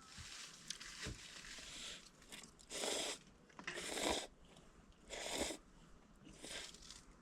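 Someone eating cup noodles, slurping them in four short hissing pulls about a second apart.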